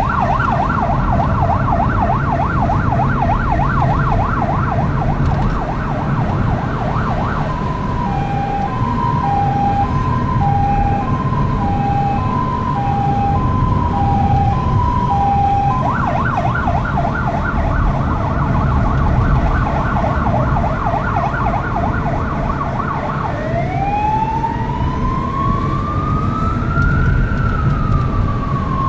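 Scania P380 fire engine's electronic siren cycling through its modes. A fast yelp runs for the first seven seconds or so, then an alternating two-tone hi-lo for about eight seconds, then the fast yelp again, and near the end a slow wail that rises and then falls. Steady engine and road noise lies underneath.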